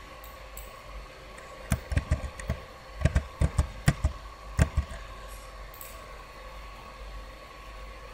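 About a dozen sharp clicks and taps of a computer mouse and keyboard being worked, in quick clusters between about two and five seconds in, over a steady background hum with a thin high tone.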